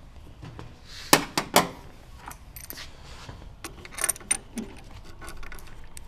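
Metal clicks and clinks of a wrench and a brass compression fitting being unscrewed from the copper water line inside a La Marzocco GS3 espresso machine. There is a cluster of sharp clicks about a second in, and lighter clinks around four seconds in.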